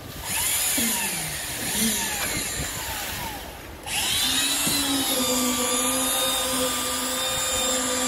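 Concrete-pouring machinery on a slab pour: a motor spins up quickly about four seconds in and runs on with a steady hum.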